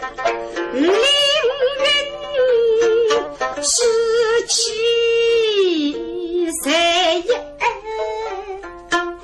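A woman singing a Suzhou tanci (pingtan) aria in long held notes with a wavering vibrato, accompanied by plucked pipa notes at the start and near the end.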